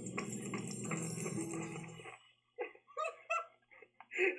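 Quick running footsteps with light clinking, over a low steady hum, stop abruptly about two seconds in. Then come a few short, high, squeaky vocal sounds, like stifled giggles or whimpers.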